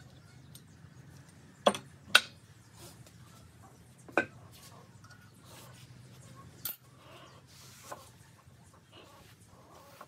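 A few sharp, short knocks and clicks, five in all and spaced irregularly, the loudest about two seconds in, over a faint low steady hum.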